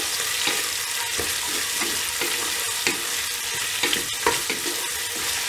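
Sliced onions sizzling in hot ghee and oil in a metal pressure cooker, stirred with a wooden spoon that scrapes and knocks against the pot at irregular moments over a steady hiss of frying.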